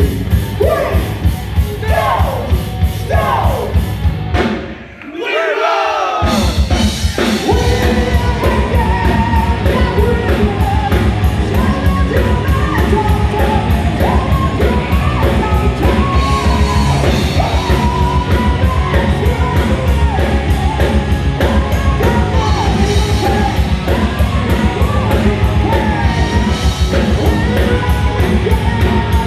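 Heavy metal band playing live, with distorted electric guitars, bass, drums and a lead singer belting the vocals. About five seconds in the band breaks off briefly, then comes back in at full volume with a fast driving beat.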